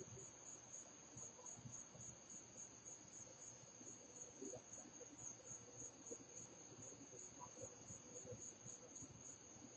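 Faint crickets chirping: a high, thin chirp repeating in a steady, even rhythm.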